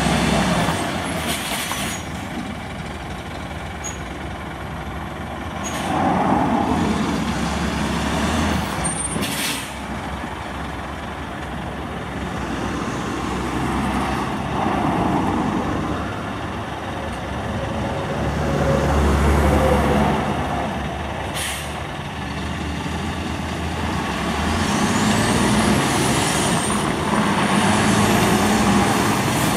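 Scania R480 truck's straight-six diesel engine running as the rig moves off slowly, pulling up in several swells. Sharp air-brake hisses come through a few times, and a thin high whine rises and falls near the end.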